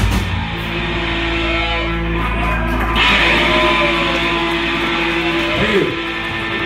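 Live rock band's electric guitars and bass holding a sustained, ringing chord after the drums stop just after the start, the song's closing chord letting ring. Near the end a note wavers and bends in pitch.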